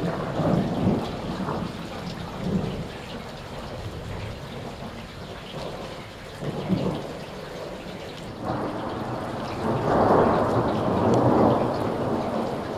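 Steady rain with rolling thunder: a few short rumbles, then a longer, louder rumble that builds about two-thirds of the way through and lasts several seconds.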